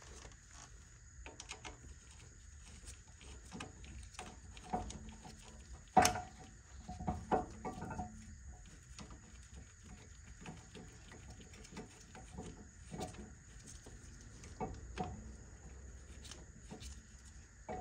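Scattered clicks, taps and light metallic clinks of tools and brake parts being handled during work on a car's rear brake caliper, with one sharp knock about six seconds in followed by a short run of clinks.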